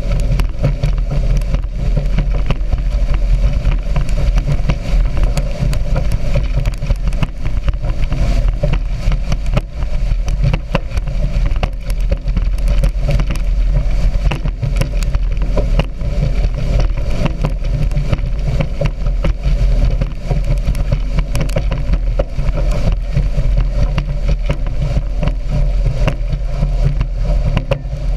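A speedboat running at speed: a loud, steady engine rumble under a constant rushing noise, with frequent short crackles.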